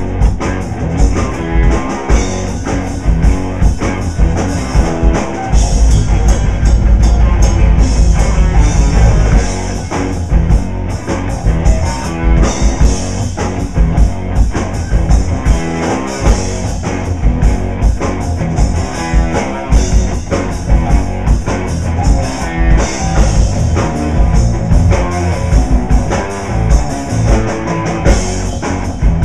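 Live instrumental rock played on drum kit and electric guitars, with busy drumming throughout. A louder, bass-heavy stretch comes about six seconds in and eases off about four seconds later.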